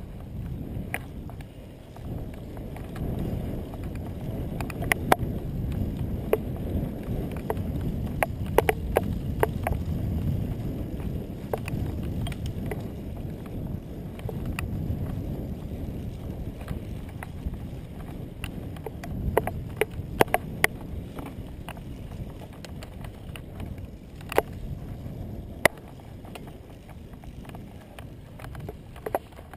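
Wind rushing over the microphone and tyre rumble from a road bicycle rolling along asphalt, louder through the first half. Scattered sharp clicks and rattles come through at irregular intervals.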